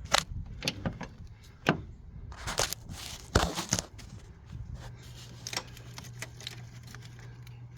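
Scattered knocks, clinks and short scrapes from a cylinder head and its exhaust manifold being handled and worked into place on an engine block. A low steady hum sets in about five seconds in.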